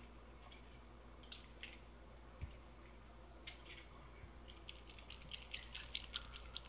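Faint scattered clicks from small objects being handled, turning about two-thirds of the way in into a quick run of light rustling clicks.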